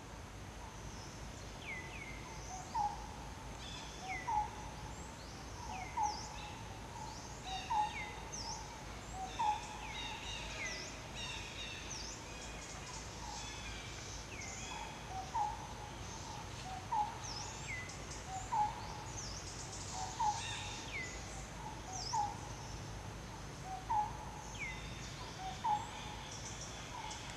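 Forest ambience of bird calls: a short two-note call repeats about every couple of seconds, with a pause around the middle, while other birds give high, quickly falling chirps over a steady background hiss.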